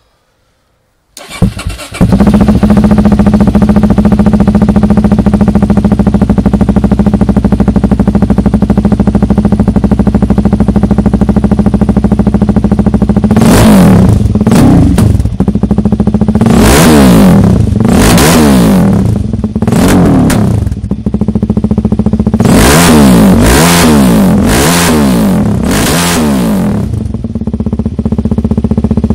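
Suzuki DR-Z400's single-cylinder four-stroke engine, through custom twin exhausts, starting about a second in and idling steadily. From about halfway it is revved in a string of quick throttle blips, pitch shooting up and dropping back, then it settles back to idle near the end.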